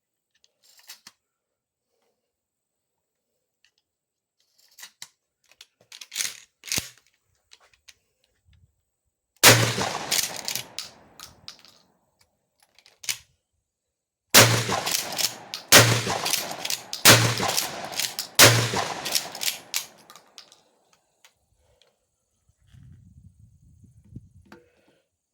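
Mossberg 500 12-gauge pump-action shotgun firing five shots, each with a ringing tail. A few light clicks of handling the gun come first. One shot falls about nine seconds in, then four more follow about a second and a quarter apart.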